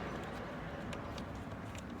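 Steady low background traffic hum, fading after a passing car, with a few faint metallic clicks from hand tools.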